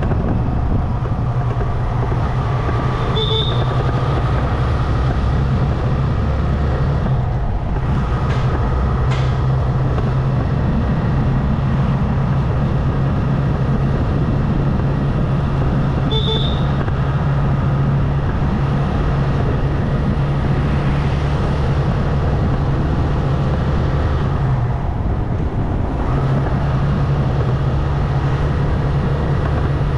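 Motorcycle engine running steadily under way, with wind and road noise; the engine hum eases briefly about 25 seconds in. Two short high chirps come about 3 and 16 seconds in.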